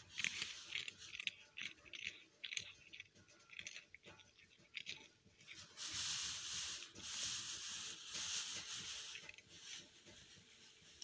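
Tabby kitten chewing pieces of biscuit, a run of short crisp crunches through the first few seconds. From about six seconds in a steadier hissing noise stands out for a few seconds.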